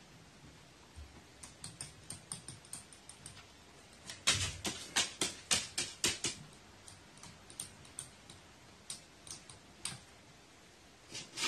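Carrion crow's claws clicking on a wooden floor as it walks and hops, with scattered light taps and a quick run of louder taps in the middle.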